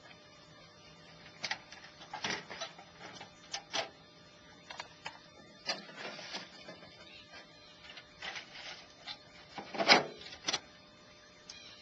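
Irregular clicks, clunks and rattles from a tray-top camper's fold-down panels and storage compartments being opened and handled, with the loudest knock about ten seconds in. The sound is sped up to double speed.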